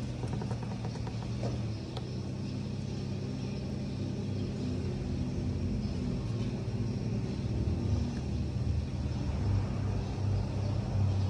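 A steady low engine rumble runs throughout, with a few faint clicks in the first two seconds.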